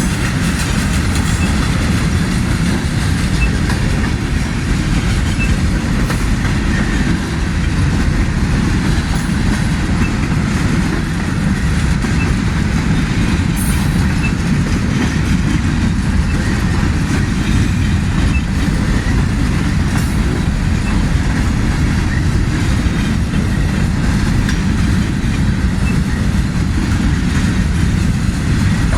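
Freight cars of a manifest train rolling slowly past at restricted speed: a steady, loud rumble of steel wheels on the rails.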